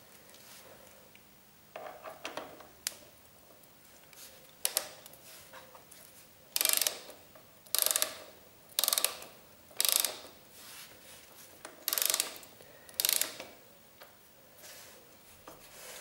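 Ratchet wrench ratcheting on the front brake caliper mounting bolts. It comes in six short bursts about a second apart, four then a brief pause and two more, after a few lighter knocks of the tool being fitted.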